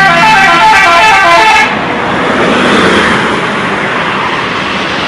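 A bus's multi-trumpet musical 'telolet' air horn plays a quick run of stepping notes for about a second and a half. It cuts off and leaves a loud, steady rush of noise.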